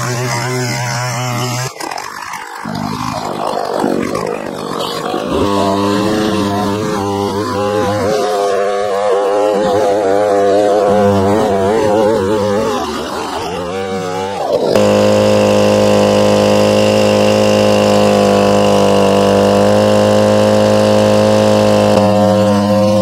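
Stihl two-stroke chainsaw cutting through logs, its engine pitch rising and sagging as the chain bites and clears the cut. About two-thirds of the way through it changes abruptly to a steady, even high-revving note as the saw cuts at full throttle. The wood is soft but wet.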